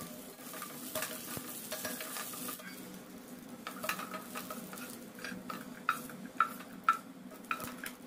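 Cashews and raisins sizzling in hot fat in a nonstick frying pan, then a spatula stirring and scraping them around the pan, with a series of sharp knocks of the spatula on the pan in the second half.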